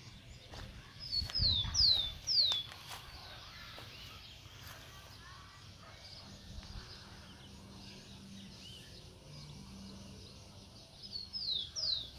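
A bird calling: a quick run of about four high notes, each sweeping downward, about a second in, and three more near the end, over faint steady outdoor background noise.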